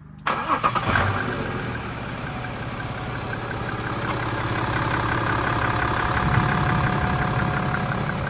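BMW X5 3.0-litre turbo-diesel straight-six starting about a third of a second in and settling into a steady idle, its freshly replaced cam chains running quietly.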